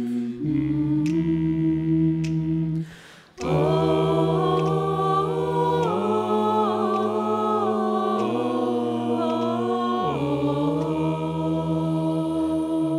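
Mixed-voice choir singing a cappella, with no instruments: held chords over a low sung bass line, moving to a new chord every couple of seconds. There is a short break about three seconds in.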